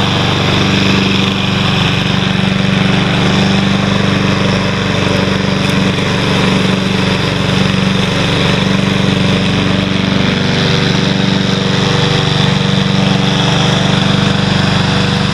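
Honda HRM215 lawn mower engine running steadily at an even speed with the cutting blade engaged, a once-seized engine now running smoothly.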